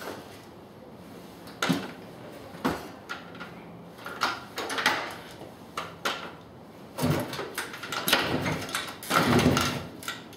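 Kawasaki KE250 dirt bike being kick-started: a string of irregular clunks and short bursts as the kickstarter is stamped down, with the engine turning over but not catching into a steady run.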